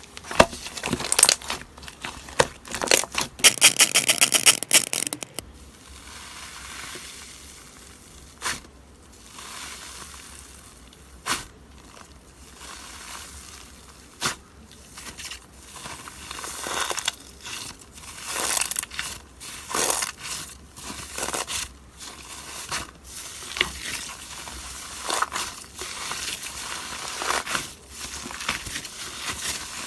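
Pet hamster crunching and rustling: irregular crackles and crinkles, with a fast run of small ticks about three to five seconds in.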